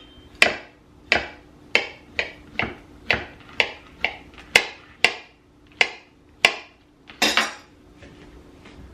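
Banana being chopped with a knife on a cutting board: about a dozen sharp, evenly spaced taps, a little under two a second, then a longer clatter about seven seconds in.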